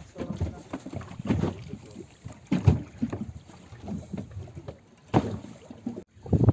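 Irregular low thumps and rushes of noise on a small fishing boat at sea, coming every second or so, with a sudden brief dropout near the end.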